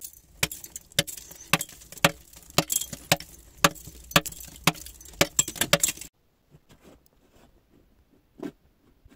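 Hand pick striking and chipping soft rock about twice a second in steady blows. The blows cut off suddenly about six seconds in, leaving faint crunching footsteps on gravelly ground.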